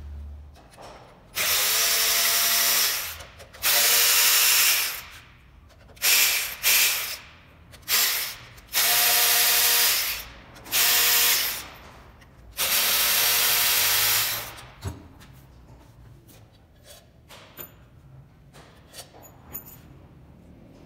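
Cordless electric ratchet running in about eight bursts of a fraction of a second to two seconds each, backing out the four case bolts of an alternator. After the last burst come light clicks and taps of parts and tools being handled.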